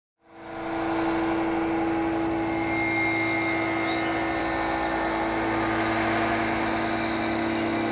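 Dense, steady electro-acoustic drone of many held tones over a low hum, swelling in from silence over the first second: prepared cymbals and electronics under live processing.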